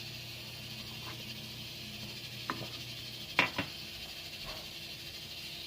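Kitchen utensils and dishes knocking and clattering a few times, the loudest knock about three and a half seconds in, over a steady hiss. A low hum cuts off about three seconds in.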